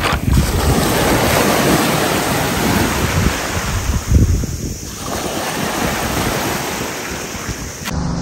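Sea waves surging and washing up the beach, with wind buffeting the microphone. Right at the end it cuts abruptly to a low steady hum.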